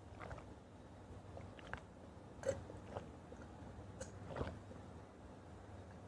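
Close-up eating sounds of a person chewing food: faint wet mouth noises with a few short, separate crunches and clicks, the clearest about two and a half and four and a half seconds in.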